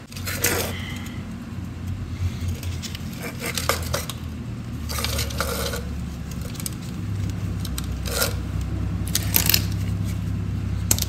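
Safety wire being threaded through bolt heads on a wheel hub: the thin wire scrapes and clinks against the steel bolts in scattered short sounds. A steady low hum runs underneath.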